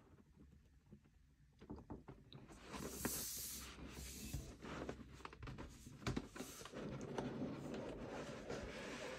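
Hands handling and sliding a large cardboard box on a desk mat: soft rubbing and scraping with light taps, after a near-quiet first couple of seconds. There are two brighter swishes around three and four seconds in, and a dull knock about six seconds in.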